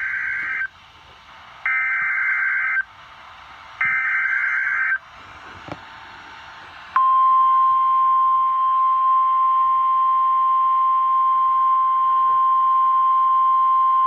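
NOAA Weather Radio Emergency Alert System header: three harsh buzzing bursts of SAME digital data, each about a second long, with radio hiss between them. About seven seconds in comes the steady 1050 Hz warning alarm tone, which signals that a warning is about to be broadcast.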